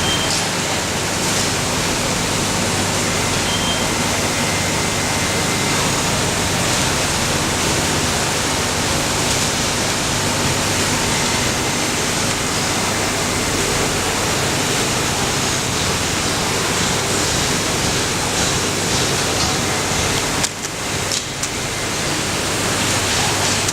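Automatic CNC pocket-welting sewing machine running: a loud, steady rushing noise over a low machine hum, which dips briefly about twenty seconds in.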